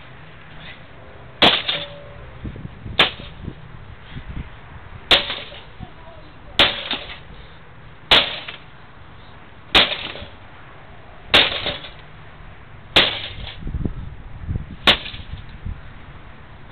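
Heavy blows struck on a desktop computer's case with a long-handled tool: nine sharp bangs, about one every one and a half to two seconds, each with a short rattling ring.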